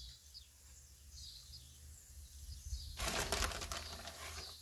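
Plastic bag of shredded cheese crinkling and rustling as it is shaken out over a pizza, a burst about three seconds in that lasts over a second; before it only faint quiet background.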